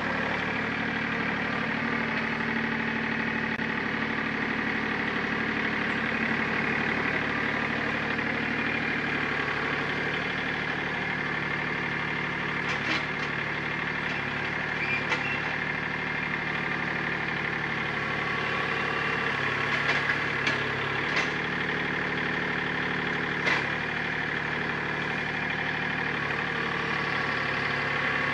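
Compact tractor engine running steadily at low revs while the tractor drives and backs up. A few short sharp clicks come through about halfway in and again near the end.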